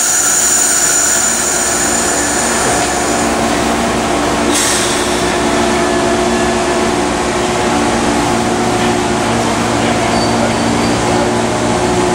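Amtrak Northeast Regional Amfleet passenger cars rolling slowly past a station platform: a steady train rumble and hum, with a thin high whine during the first three seconds.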